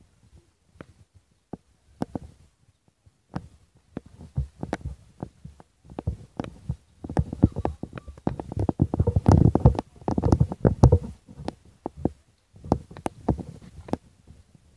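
Low rumbling and knocking on the microphone itself, typical of wind buffeting or handling, with a louder, busier stretch in the middle.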